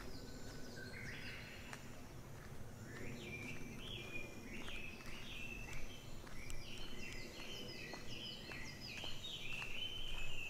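Several birds calling, many short, overlapping whistled notes that grow busier from about three seconds in, with occasional faint clicks.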